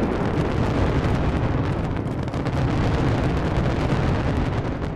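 A fireworks barrage: many aerial shells and effects bursting in quick succession, a dense stream of bangs and crackles over a continuous low rumble.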